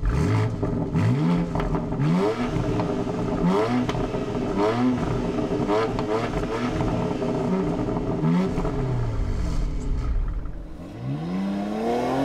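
BMW X3 M Competition's 3.0-litre twin-turbo inline six, heard from outside through its quad-tip exhaust with the exhaust valves fully open, being blipped in short revs about once a second. Near the end it gives one longer rising pull as the car accelerates.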